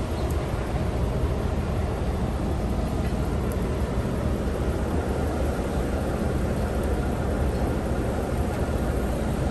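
Steady outdoor background noise: a low rumble with an even hiss over it, unchanging throughout.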